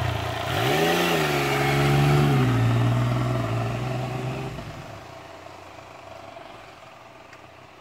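2014 Yamaha FZ-09's three-cylinder engine pulling in first gear: its pitch rises, holds, drops lower, and fades out after about four and a half seconds, leaving a faint hiss.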